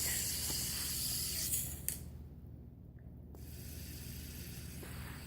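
A spinning fidget spinner whirring with a high hiss, then a sharp click about two seconds in, after which the hiss stops.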